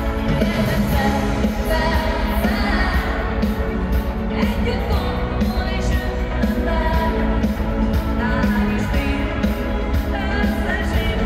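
A live pop song played through an arena's sound system: a woman singing lead over a band with a steady drum beat.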